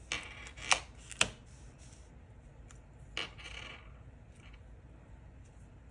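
Plastic scraper card dragged across a metal nail-stamping plate: a short scrape and two sharp clicks in the first second or so, then another short scrape about three seconds in.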